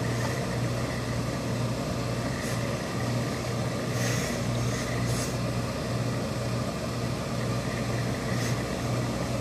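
Steady low machine hum of the tailor's pressing equipment, with a few short hisses of steam from a hose-fed industrial steam iron as it presses suit-trouser fabric.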